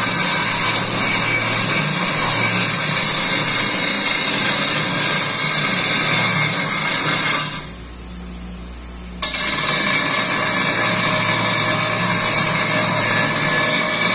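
Bench grinder grinding a metal pipe: a steady, harsh grinding noise over the motor's hum. About halfway through the grinding stops for under two seconds as the pipe is lifted off the wheel, leaving only the grinder's motor humming, then the grinding starts again.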